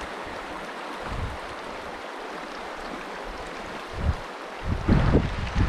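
Shallow river riffle rushing steadily over gravel, with wind buffeting the microphone in low gusts that grow heavy near the end.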